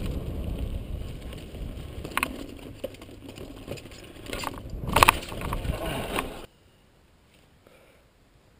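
Mountain bike rolling down a dirt trail and onto a wooden ladder stunt, rattling and clicking over wind rumble on the microphone, with sharp clunks about four and a half and five seconds in. About six and a half seconds in the sound drops suddenly to quiet, leaving only faint ticking.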